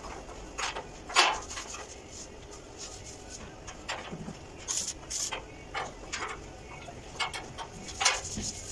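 Irregular sharp clicks and knocks of metal from work on a steel spiral staircase with round-pipe railings, the loudest about a second in and near the end, with a couple of short scraping hisses around the middle.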